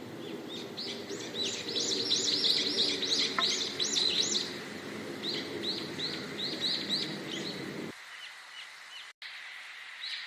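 A songbird singing rapid runs of repeated, arched, high chirps, about four or five a second, in two bursts with a short pause between them. A steady low rumble sits underneath and cuts off suddenly near the end, followed by a brief dropout.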